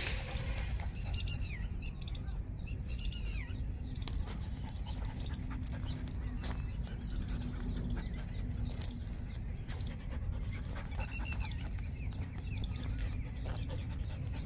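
A dog panting during play, over steady low rumbling noise, with short high chirping calls twice, near the start and again about eleven seconds in.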